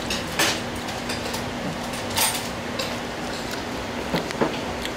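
Eatery room noise: a steady low hum with a few short clatters.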